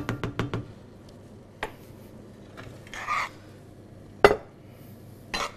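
Metal spoon clinking and scraping against an enamelled cast-iron pot while risotto is spooned out for plating: a quick run of clinks at the start, a short scrape about three seconds in, and a sharp knock just after four seconds, the loudest, with another knock near the end.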